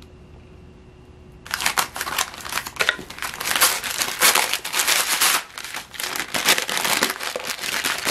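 Brown kraft wrapping paper crinkling and rustling as it is handled and unwrapped, starting about a second and a half in and going on in dense crackly bursts, with a short lull just past the middle.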